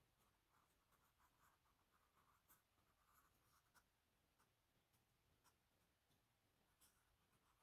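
Faint drawing strokes on paper: a quick run of short scratchy strokes over the first few seconds, then a few scattered light ticks.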